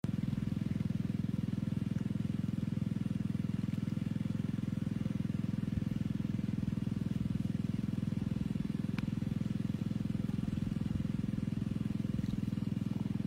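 Small engine-driven water pump running at a steady, unchanging speed, a low, even drone made of rapid firing pulses, as it drains a pond.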